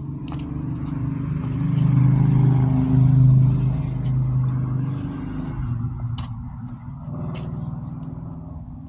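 A motor vehicle's engine, a low hum that swells to its loudest a few seconds in and then fades away, as of a vehicle passing by. A few sharp clicks come near the end.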